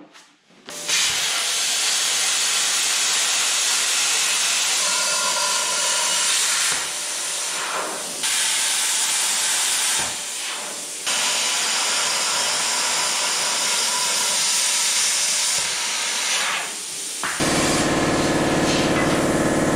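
Handheld plasma cutter cutting through the metal frame: a loud steady hiss of the arc and compressed air, breaking off briefly several times as the torch stops and restarts. For the last couple of seconds it turns into a louder, coarse buzz.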